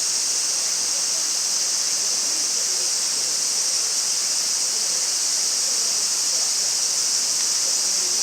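A steady, high-pitched hiss that holds an even level throughout, without clicks or crackles.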